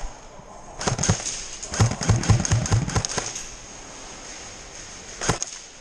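Airsoft gunfire: two sharp cracks about a second in, then a quick string of shots at about five a second lasting just over a second, and one more crack near the end.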